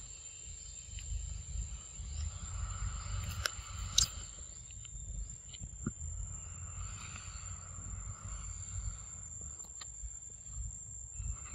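Forest ambience of insects: a steady high-pitched whine with lower buzzing that swells and fades every few seconds, over a low rumble. A few sharp clicks, the loudest about four seconds in.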